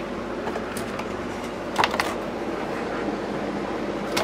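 Steady background noise with a faint low hum, broken by a few short clicks, most of them about two seconds in.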